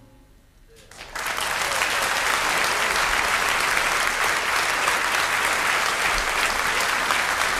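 Audience applause breaking out suddenly about a second in, after a brief hush at the end of a big-band number, then continuing as steady, dense clapping.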